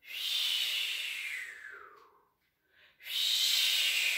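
A person making a breathy, hissing whoosh by mouth, twice, each one sliding down in pitch: a spooky imitation of a mysterious noise for a story. The second starts about three seconds in.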